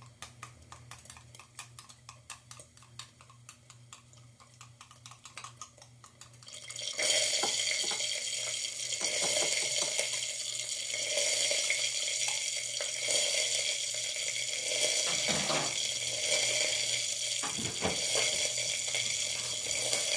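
Wire whisk beating an egg in a glass bowl: quick, even clicks of metal on glass. About seven seconds in, a loud steady hiss starts and drowns out the clicks.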